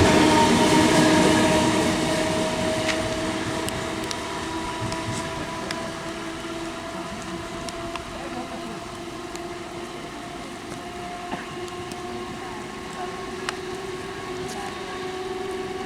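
MEMU electric multiple unit train pulling away, its running noise fading over the first few seconds. A steady electric whine of several tones stays, rising slightly in pitch as the train gathers speed, with a few sharp ticks.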